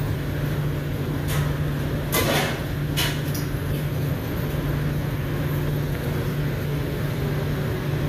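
A steady low machine hum, with a few brief handling noises about one to three seconds in.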